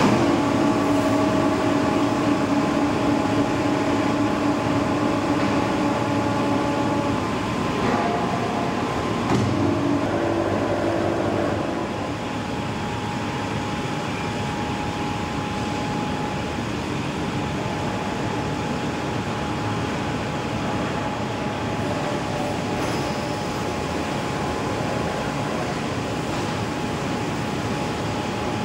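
Steel rolling mill for rebar running: a continuous mechanical din from the rolling stands and roller tables. Steady humming tones come and go over the first twelve seconds or so, after which it settles slightly lower and even.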